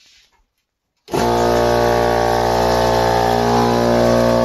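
An electric motor switches on about a second in and runs with a loud, steady, deep hum.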